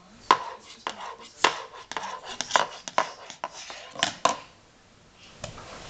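Irregular sharp taps and knocks of plastic stacking cups and a baby's hands on a hardwood floor, dying away about four and a half seconds in, with one last tap near the end.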